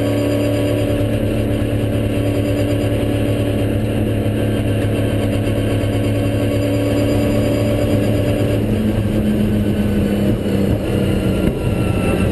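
Holden Commodore V8 Supercar's V8 engine heard from inside the cockpit, running at a fairly steady, slowly falling pitch. Its note changes a little past two-thirds of the way through.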